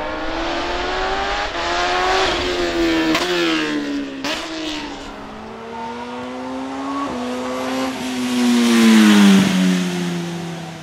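Superbike engine accelerating hard, its pitch climbing and dropping through several gear changes. Near the end a bike passes close, loudest here, its pitch falling as it goes away.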